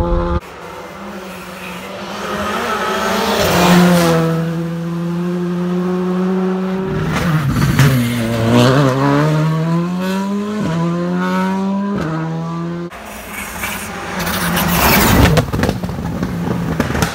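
Škoda Fabia R5 rally cars' engines at hard throttle through a few short passes. About eight seconds in the revs drop for a corner, then climb again up to a gear change, with noisy surges as the cars pass close. The sound jumps abruptly about half a second in and again near thirteen seconds.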